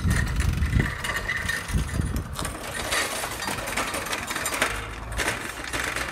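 Small two-stroke engine of a Hitachi/Tanaka THB-2510N handheld engine blower idling steadily while the blower rests on the ground.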